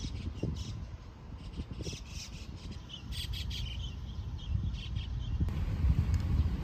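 Small birds chirping in short repeated calls over a steady low rumble of wind and distant road traffic. About five and a half seconds in, the chirps stop and a louder traffic hum takes over.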